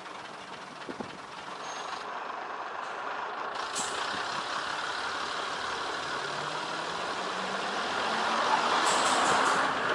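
A train running past, its rumble of wheels and running gear growing steadily louder to a peak near the end.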